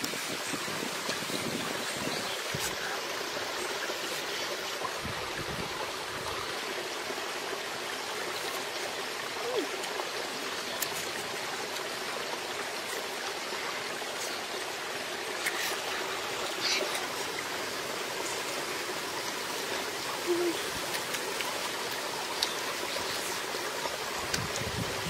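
Shallow stream running over rocks, a steady rushing with a few faint clicks over it.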